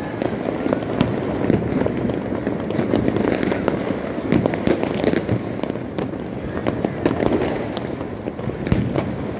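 Many fireworks and firecrackers going off across a city: a dense, irregular run of sharp bangs and crackles over a steady din of more distant ones.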